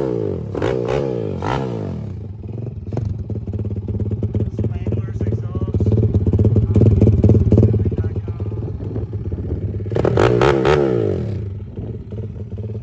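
Daytona 190cc single-cylinder engine in a Honda ATC70 three-wheeler, blipped with quick throttle revs for the first couple of seconds. It settles to a steady idle, is revved again in a short burst about ten seconds in, then drops back to idle.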